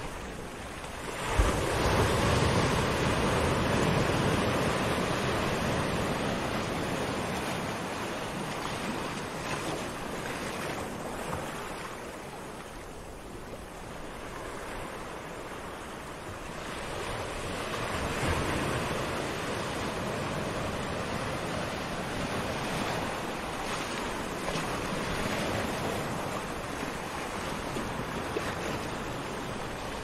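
Gentle surf washing up a sandy beach and drawing back. It is a steady rush that swells sharply about a second and a half in, eases off toward the middle, and builds again a little past halfway.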